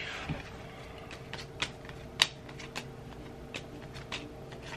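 Tarot cards being drawn and laid down on a wooden table: a run of light, irregular clicks and card snaps, one sharper snap a little past the middle, over a faint steady hum.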